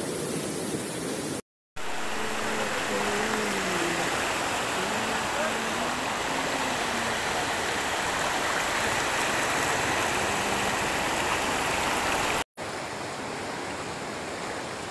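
Fast muddy floodwater rushing over and through a broken road, a steady rushing noise that drops out briefly twice.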